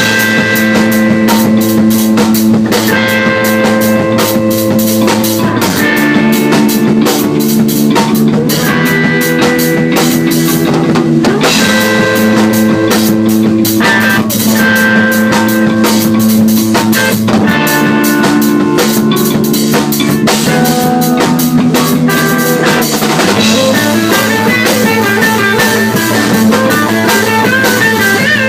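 Rock music: a drum kit keeps a busy steady beat under sustained chords that change every few seconds.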